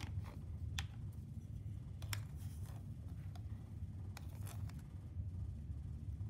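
A few faint, sharp clicks and snips of metal tweezers being handled while picking up magnesium, over a low steady hum.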